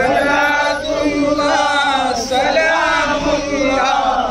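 A group of men chanting together in unison, in repeated sung phrases about a second long.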